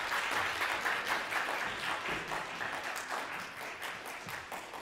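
Audience applauding, the clapping thinning and dying away toward the end.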